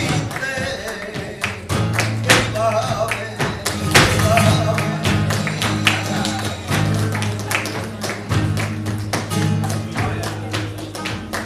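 Flamenco fin de fiesta: a Spanish guitar strums and plucks steady bass notes under rhythmic palmas, the sharp handclaps of several performers. A voice sings short wavering phrases now and then.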